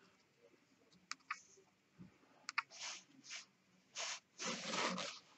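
Faint handling noises as twine is worked around a served rope: short rustles of cord being drawn through and a few small sharp clicks, the longest rustle near the end.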